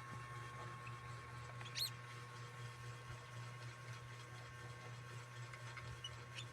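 A small pet snoring softly as it sleeps after eating, with one short, high squeak about two seconds in and a fainter one near the end, over a steady low hum.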